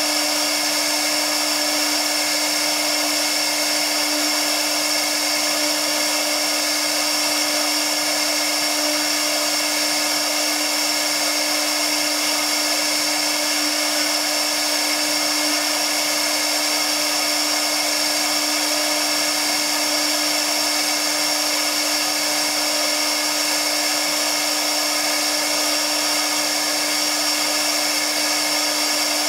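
TipTop 1325 CNC router spindle running at a constant speed while its bit carves MDF board: a steady high whine over a constant lower hum, with no change in pitch or level.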